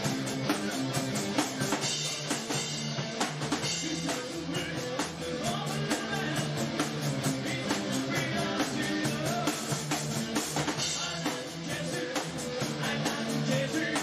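Background music with drums, guitar and a steady beat.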